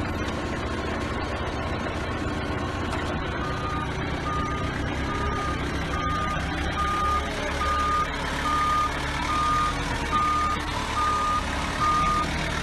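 Forklift reversing alarm beeping steadily at a single pitch, starting a few seconds in, over the forklift's engine running.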